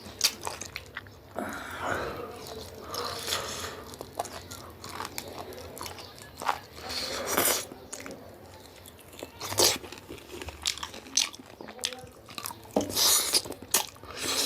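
Close-miked eating: biting into and chewing a rooster leg from a chicken curry, with irregular sharp crackles throughout.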